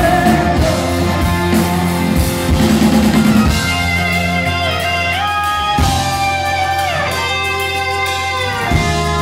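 Live rock band playing, with drums, bass and guitars, and no vocal. From about three and a half seconds in, the backing thins and a double-necked electric guitar plays a lead line of long held notes that bend and slide in pitch.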